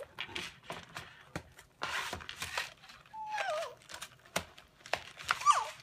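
Plastic and cardboard toy packaging crinkling and rustling with scattered clicks as a child handles it and tries to open it. Two short squeaky voice sounds from the child, one about halfway and one near the end.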